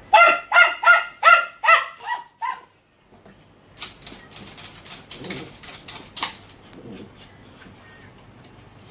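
Dachshund barking angrily in a quick run of about seven sharp barks, then stopping. A scatter of light clicks and knocks follows.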